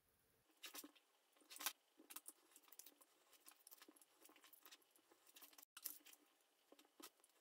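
Faint, scattered scratchy clicks and ticks of a craft knife blade cutting through a styrofoam plate, with a few slightly louder ticks in the first two seconds.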